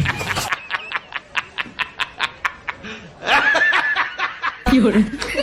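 Snickering laughter: a quick run of short breathy laughs, about five a second, with a fuller voiced laugh about three seconds in. It changes abruptly near the end.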